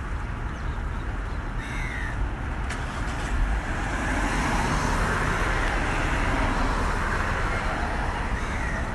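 Steady outdoor traffic noise that swells for several seconds from about four seconds in, as of a vehicle passing. A short bird call sounds about two seconds in.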